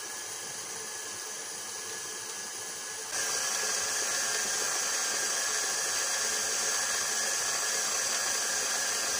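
KitchenAid Heavy Duty bowl-lift stand mixer running at low speed, its motor giving a steady whir as the flat beater creams butter and sugar in the steel bowl. The whir gets louder about three seconds in.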